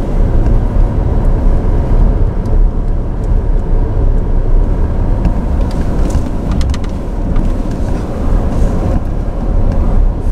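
Rolls-Royce Cullinan rolling over a rough dirt track, heard from inside the cabin as a loud, steady low rumble of tyres and suspension. A few short ticks come about six to seven seconds in.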